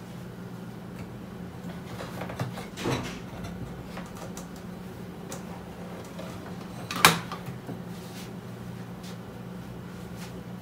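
Hands handling a computer monitor and its cables: a few light clicks and a short rustle, then one sharp knock about seven seconds in, over a steady low hum.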